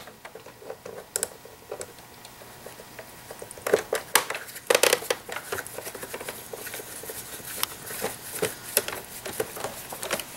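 Screwdriver turning out a screw from the plastic brew-group mount of an espresso machine: a run of small irregular clicks, ticks and scrapes of metal on plastic, thickest around the middle.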